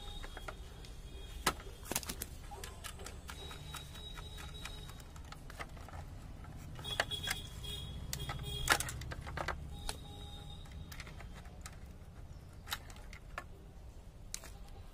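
Irregular clicks, taps and light rattles of hand tools and parts being handled: pliers and fingers working on the switch and fittings of a plastic mixer grinder body. The sharpest clicks come about two seconds in and again around eight to nine seconds in.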